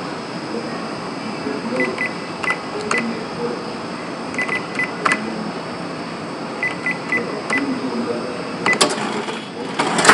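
Café background: a steady murmur of voices, with short high beeps from a cash register keypad in groups of two or three, and a few sharp clatters, the loudest near the end.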